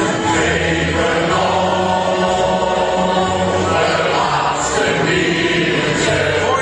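Men's shanty choir singing a sea shanty in long held notes over a steady accordion-style accompaniment.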